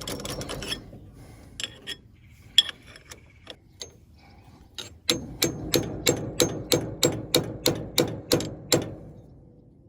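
Hammer striking the steel drive chain of a New Holland RB560 round baler: some scattered metal clinks, then about five seconds in a steady run of about a dozen sharp, ringing blows, roughly three a second, as a link of the chain is knocked apart.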